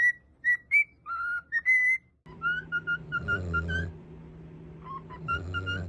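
A parrot whistling clear, pure notes. First come a few separate whistles, then two quick runs of short repeated notes that sound like a whistled tune.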